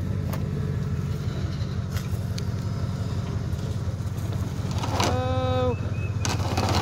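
Pickup truck engine running steadily at low revs. A single drawn-out call breaks in about five seconds in.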